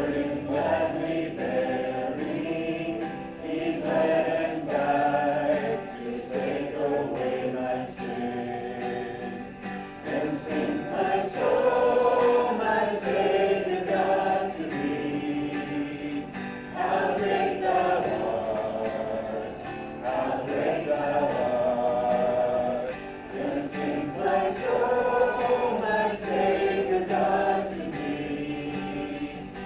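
A group of voices singing a worship song together in sustained, held notes.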